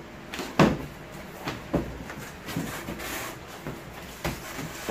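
A large cardboard box being opened out and squared up by hand. There are several dull knocks as the box and its flaps are pushed and bumped into shape, the loudest about half a second in, and a brief rustle of cardboard near the middle.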